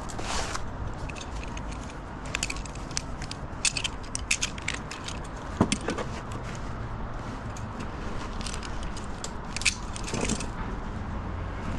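Irregular metallic clinks and rattles of rope-access climbing hardware being handled at the roof edge, over a steady low rumble of wind on the microphone.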